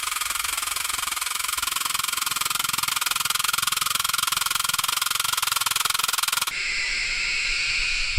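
Automatic watch rotor spinning with a steady, high whirr made of fast fine ticking. About six and a half seconds in it changes to a more tonal whirr.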